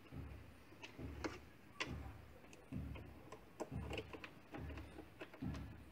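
Hand work in a car's engine bay: a tool or part clicking and knocking in short repeated strokes, roughly once a second.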